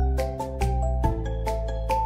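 Background music: a bright melody of short notes, about two a second, over a held bass.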